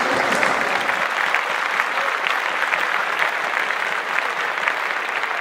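Applause: many hands clapping together in a dense, steady patter.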